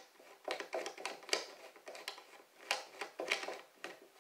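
Irregular light metal clicks and taps, about ten in all, as a bolt and washer are fitted by hand into the bolt hole of a pool table leg.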